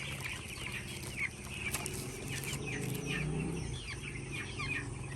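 A flock of two-week-old broiler chicks peeping: many short, falling cheeps overlapping throughout.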